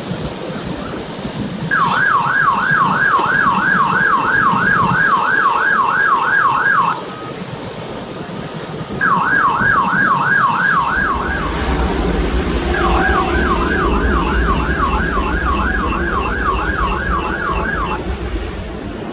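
An electronic siren wails in three bursts, its tone sweeping up and down about three times a second. From about eleven seconds in, a low rumble builds underneath as the Cathay Pacific Airbus A350-900's Rolls-Royce Trent XWB engines spool up for takeoff.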